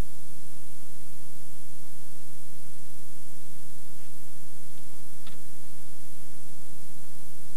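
Steady tape hiss and mains hum from an old VHS soundtrack, with a faint single click about five seconds in.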